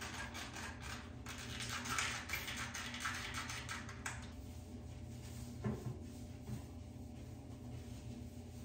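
A trigger spray bottle spritzing a few times onto a folded paper tissue, with paper rustling, over the first half. Then a quieter stretch of the tissue wiping a plastic toilet seat, with one light click a little past halfway.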